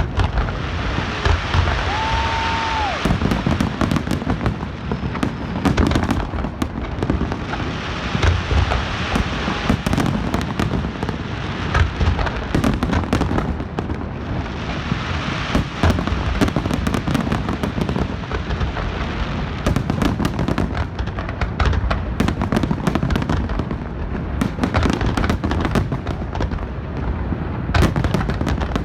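Large aerial fireworks display: a continuous rapid barrage of shells bursting with deep booms and dense crackling, with no let-up.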